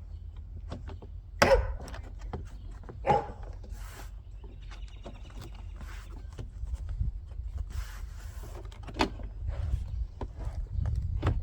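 Car door trim panel parts being handled and fitted by hand: scattered light clicks and rattles of plastic, with two louder knocks about one and a half and three seconds in.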